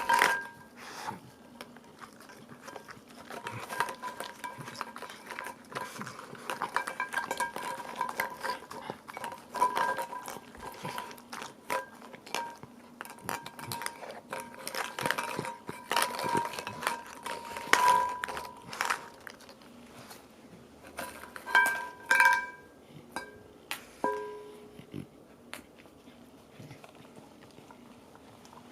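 Hollow plastic Easter eggs clattering and knocking as a dog rummages through them, with irregular sharp clicks, louder knocks now and then.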